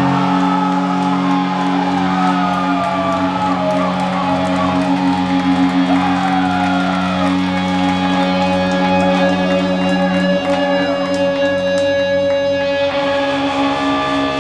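Live doom metal band playing: distorted guitars and bass hold a low droning chord while a lead guitar slides and bends notes above it. The low chord drops out about ten seconds in, leaving the higher sustained guitar notes.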